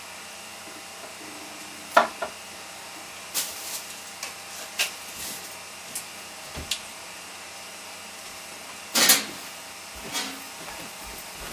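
Handling noise from someone moving a wired robot-arm control rig and its cables: scattered short clicks and knocks over a steady hiss, the loudest about 9 s in.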